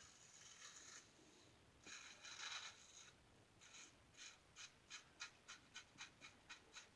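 Faint scraping of a 1901 New Gem single-edge safety razor cutting lathered stubble on an across-the-grain pass. A few longer strokes come first, then a run of short quick strokes, about three a second, through the second half.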